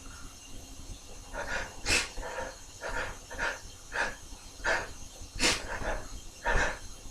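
A man's quick, gasping breaths and sniffs as a sneeze builds: about ten short bursts, roughly one every half second to second, with two sharper snorts about two seconds in and about five and a half seconds in.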